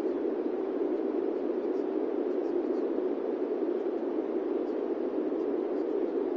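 Steady masking white noise from a subliminal audio track. It is an even, unbroken, dull rushing sound, with most of its weight in the low-middle range.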